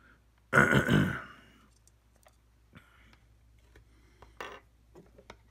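Handling noise from the red plastic housing pieces of a cordless soldering iron: one loud burst about half a second in, then a few scattered light clicks as the parts are turned over and fitted together.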